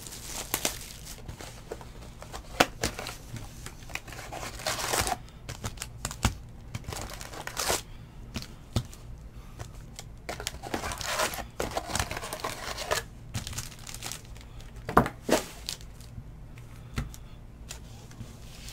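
Trading-card pack wrappers crinkling and tearing as packs are opened and the cards handled, in several stretches of a second or two, with a few sharp taps in between.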